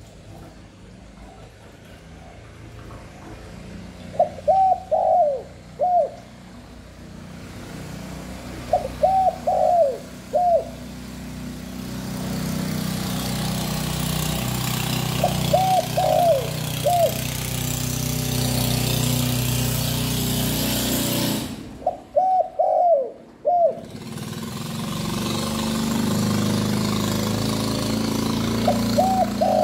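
Spotted dove cooing: a short phrase of three or four coos repeated about every six seconds, five phrases in all. A steady engine-like hum and hiss runs underneath and drops out briefly between the fourth phrase's start and its end.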